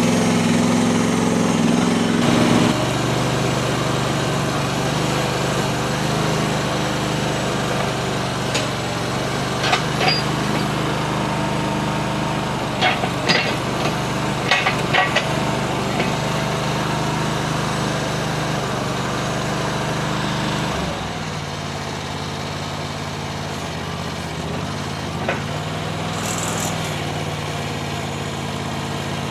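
Mini skid steer's small engine running steadily, with a few sharp clicks and knocks in the middle stretch. The engine note drops and changes about two-thirds of the way through.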